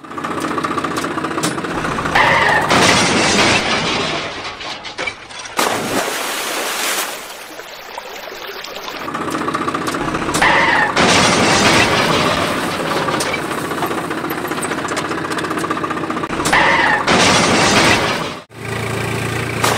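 An engine sound effect runs steadily under loud stretches of rough, crackling noise that come back every few seconds in a looping pattern.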